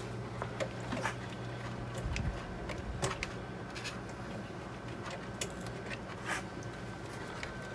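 Low steady electrical hum from the bench setup, with faint scattered clicks and taps as test leads and cables are handled.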